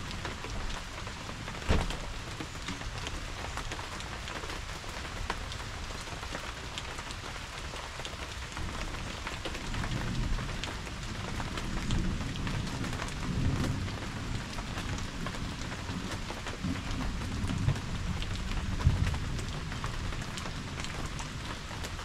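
Steady rain falling, with many individual drops ticking. There is one sharp knock about two seconds in, and a low rumble comes and goes through the second half.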